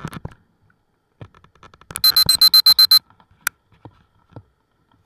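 Rapid electronic beeping, about eight short high-pitched beeps in one second, followed by a single sharp click; faint scattered clicks and thumps around it.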